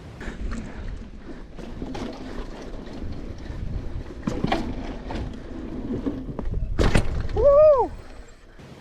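Hardtail mountain bike ridden over a dirt trail: a steady rumble of tyres and drivetrain, broken by several sharp knocks and rattles as the bike hits bumps and features, the biggest just before the end. Near the end comes a short whoop that rises and falls in pitch.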